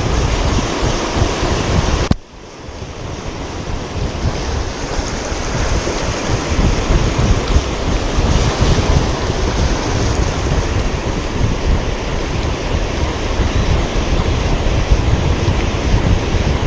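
Wind buffeting the microphone over the steady wash of surf breaking on the beach. The noise drops away suddenly about two seconds in, then builds back up.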